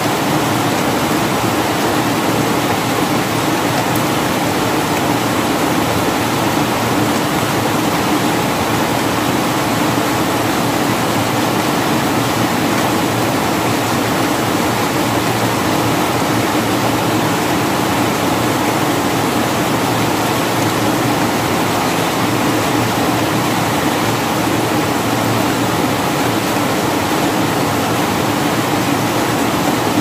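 Steady rain falling: a loud, even hiss of drops that holds without let-up.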